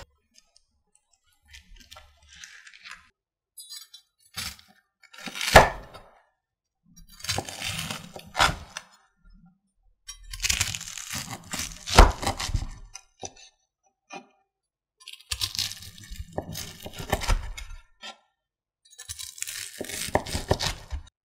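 Kitchen knife slicing through the crisp breadcrumb crust of a deep-fried pork cutlet (tonkatsu) on a wooden cutting board. About six crunching, crackling cuts are heard, and twice a cut ends in a sharp knock of the blade on the board.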